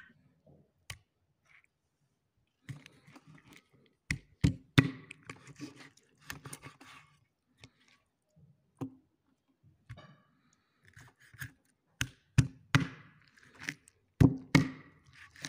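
Raw chicken breast being handled and sliced with a knife on a wooden cutting board. Sharp knocks against the wood come in groups of two or three, with soft scuffing and rustling of the meat between them.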